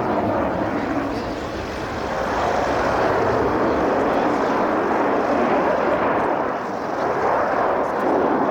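Aircraft flying past: a steady rushing engine noise that dips slightly and swells again.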